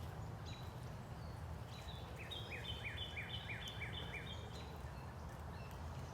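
A songbird singing a phrase of about six quick, evenly spaced down-slurred notes, over a steady low background rumble.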